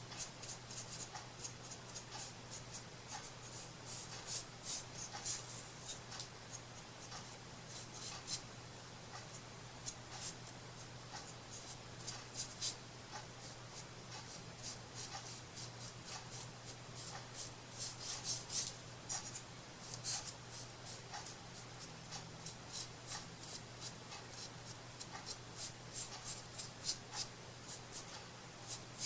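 Short, irregular scratchy strokes and light taps from hands working on a small wooden craft piece, over a steady low hum.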